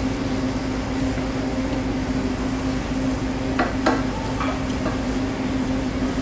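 Arborio rice and sherry sizzling in a stainless saucepan as a wooden spoon stirs it, the sherry cooking off into the rice. There is a steady low hum underneath, and a few knocks of the spoon against the pan a little past halfway.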